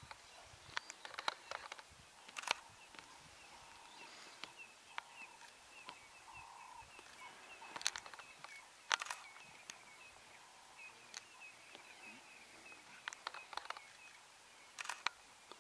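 Sharp camera shutter clicks every few seconds, a few in quick clusters near the end, over a faint, steady run of high chirps.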